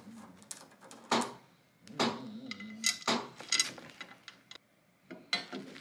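Hard clinks and knocks as a Uras GT wing's carbon-fibre end plates and mounting bolts are handled and set against each other, several sharp taps in an uneven rhythm.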